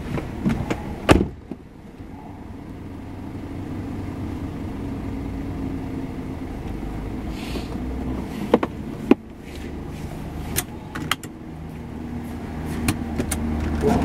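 Ford Fusion being driven, heard from inside the cabin: a steady engine and road drone, with several sharp clicks and knocks scattered through it. The engine is running after its balance shaft was removed to cure a noise.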